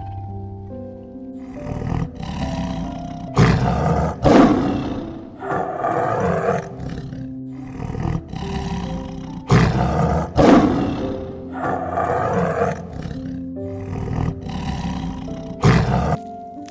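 A large animal's loud, rough calls, repeated about a dozen times, over background music.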